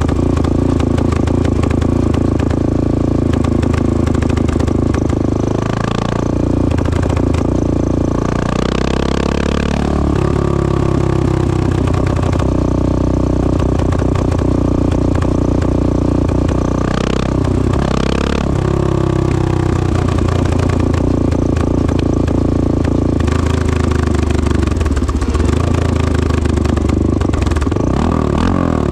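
1986 Honda XL600R's single-cylinder four-stroke engine running loudly through a stainless Devil exhaust. The engine note shifts briefly a few times: about 6 and 9 seconds in, twice near the middle, and near the end.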